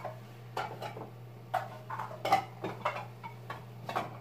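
Empty dip (chewing-tobacco) cans clicking and clattering as they are handled and stacked, about seven light knocks spread through, over a steady low hum.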